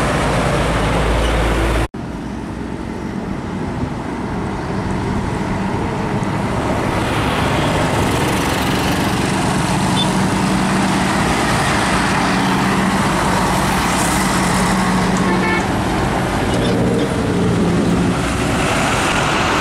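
Heavy diesel trucks passing on a road: steady engine running and tyre noise from the passing traffic. The sound breaks off abruptly for an instant about two seconds in, then resumes.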